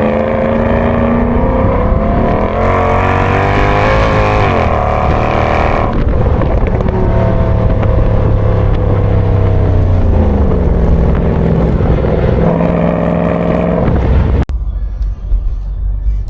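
Mercedes-AMG S63's V8 engine and exhaust on the move, climbing in pitch under acceleration for a few seconds, then dropping sharply as the throttle is lifted or a gear is changed, and rising again later. Near the end the sound cuts off abruptly to a quieter low rumble.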